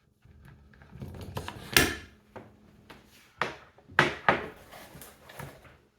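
Knocks and clatter of golf irons being handled and set into a loft-and-lie bending machine's clamp, a few sharp strikes with the loudest about two seconds in and a quick cluster of knocks a little past the middle.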